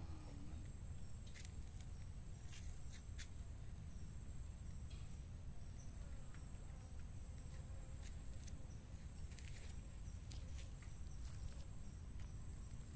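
Steady outdoor ambience of a high, continuous insect drone over a low rumble, with a few scattered sharp clicks and taps.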